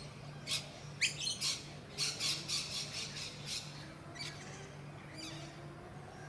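Birds squawking: a quick run of short, harsh calls, thickest from about one to three and a half seconds in, over a steady low hum.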